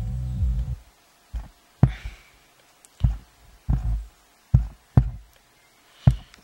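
Subwoofer bass music through a low-pass filter preamp board plays for under a second, then cuts out. It comes back only as irregular short low thuds with clicks, about ten of them, as the faulty volume potentiometer connection makes and breaks.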